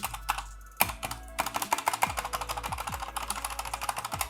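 Fast typing on an Akko 3068 mechanical keyboard with Cherry MX Red linear switches: a dense stream of keystroke clacks beginning about a second in.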